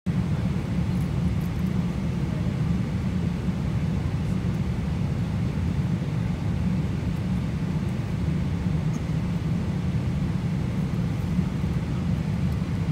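Steady airliner cabin noise in flight: engine and airflow rumble, deep and even, with a fainter hiss above it.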